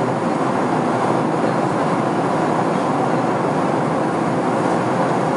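Steady cabin noise of a Boeing 767-400ER airliner at cruise: an even rush of airflow and engine noise with no changes.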